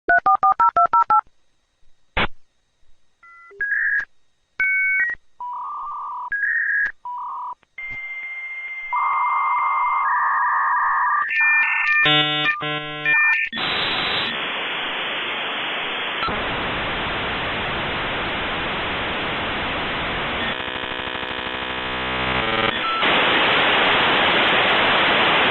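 Dial-up modem connecting: a quick run of touch-tone dialing, a click, then a series of steady tones and a chirping screech as the modems handshake. This turns into loud hissing noise for the last ten seconds or so.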